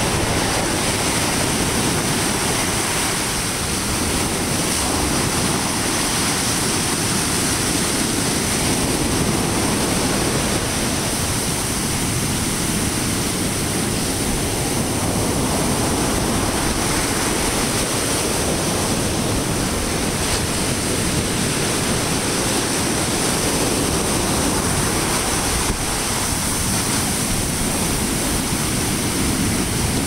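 Ocean surf breaking and washing up a sandy beach: a steady, unbroken rush of waves.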